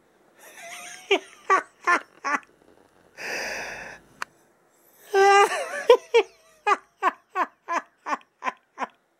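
A man laughing: a few short laughs, a long breathy wheeze about three seconds in, then a run of about ten quick, even laughs, roughly three a second.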